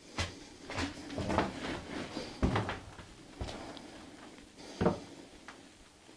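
A string of irregular knocks and clunks, about seven in all, the loudest a little before the end, like hard objects or wooden parts being bumped and handled in a small room.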